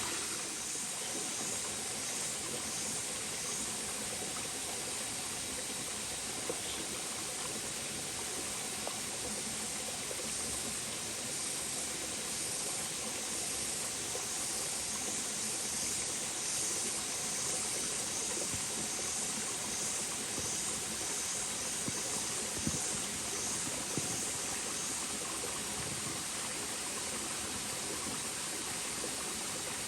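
Steady rush of running water from a stream or waterfall, an even hiss with no break.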